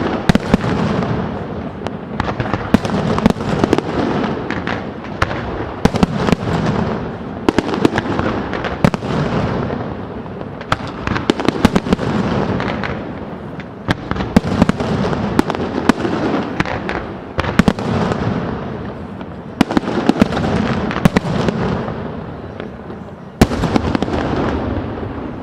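Fireworks display: a dense, continuous barrage of shell bursts, sharp cracks and booms with a rolling, echoing rumble that swells in waves every second or two.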